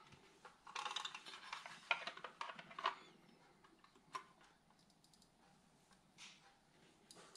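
Plastic scraping and clicking as the housing of a VW Golf Mk6 auto-dimming rear-view mirror is pried apart and the mirror glass lifted out. A run of scratchy rubbing and small clicks comes first, then a few sharp single clicks spaced out later.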